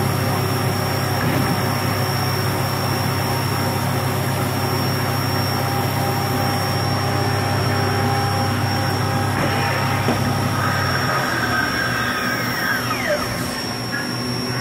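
Kuraki KV-700 CNC vertical milling machine running and cutting under flood coolant, with chips spewing against the enclosure over a steady machine hum. About eleven seconds in the low hum drops away and a few falling whines follow.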